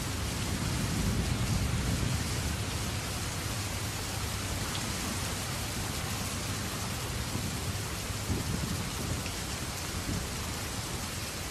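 Steady rushing noise of muddy floodwater flowing across a stony riverbed, with a deep rumble underneath, a little louder about a second in.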